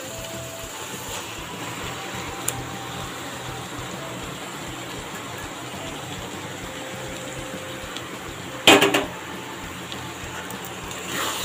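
Steady low hiss of masala frying in a kadai while marinated chicken is spooned in from a bowl. About nine seconds in comes a short, loud metallic clatter of the steel spoon against the bowl and pan.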